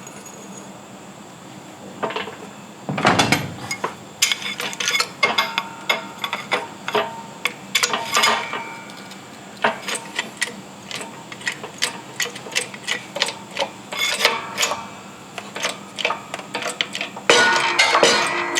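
Metallic clinks and clanks from a shop press being worked to push the old rear wheel bearing out of a 2015 Arctic Cat Wildcat Sport's hub carrier, with a heavier dull thump about three seconds in. The clatter grows louder and denser near the end.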